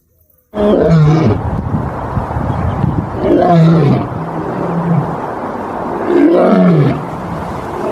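Recorded lion roars, repeated about every three seconds, each a loud call that falls in pitch. They start suddenly about half a second in, with a fourth roar beginning near the end.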